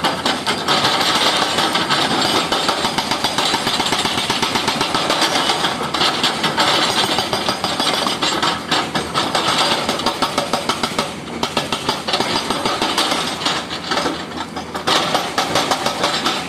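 Komatsu excavator's hydraulic breaker hammering in a rapid, continuous stream of blows, with the machine's engine running underneath. The hammering eases off briefly twice in the latter part.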